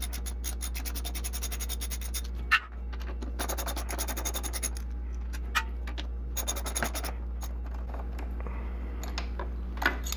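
Hand ratchet with a T45 Torx bit clicking in three quick runs as the engine-mount bolts of a KTM 350 SX-F are backed out, with a single metal knock between runs. A steady low hum lies underneath.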